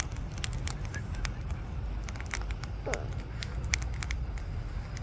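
Campfire wood crackling, with sharp pops scattered irregularly over a steady low rumble. About three seconds in, a short gliding call is heard.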